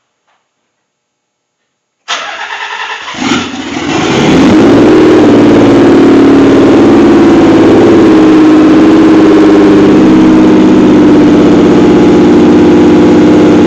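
Nissan 300ZX twin-turbo's V6 cranked on the starter for about a second, then catching and rising to a really loud, steady idle through an open exhaust with no cat-back or downpipes fitted. The engine is running in safety mode with the mass airflow sensor disconnected, at an idle the owner calls rough.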